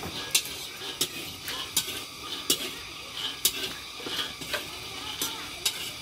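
A spatula stirring beans as they dry-roast in a metal wok, the beans rattling and scraping over the pan with frequent sharp clinks.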